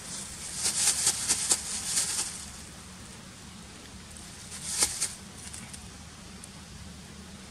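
Scratchy crackling rustles: a quick cluster in the first two seconds, then one more about five seconds in, over a faint steady low hum.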